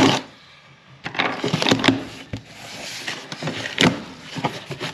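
Cardboard shipping box being opened by hand, its flaps pulled apart: irregular rustling and scraping of cardboard with sharp knocks, starting about a second in.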